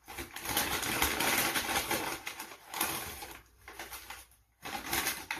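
Paper takeout bag rustling and crinkling in short irregular spells as it is handled and opened.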